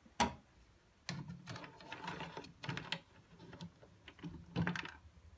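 A plastic toy plate set down with a click, then a plastic toy ladle scooping acorns and small bouncy balls around in a plastic toy pot: a run of rattling clicks and knocks, with a shorter burst near the end.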